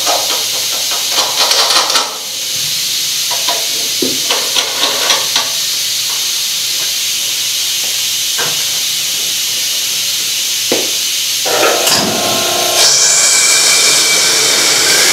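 Steady hiss from a Schenck high-speed turbocharger core balancer, with clicks and knocks as a turbo cartridge is fitted and the hood is shut. Near the end the hiss grows louder and a rising whine begins as the turbo cartridge winds up to speed.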